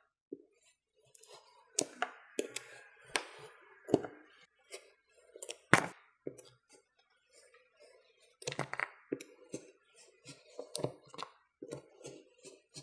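Kinetic sand being carved with a wire-loop sculpting tool: irregular crisp crackling and scraping as the loop cuts grooves through the packed sand. The loudest crackle comes about halfway through.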